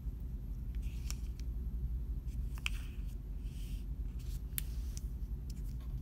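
Faint rustling and light clicks of a square of origami paper being folded in half and its crease pressed flat with the fingers, over a steady low room hum.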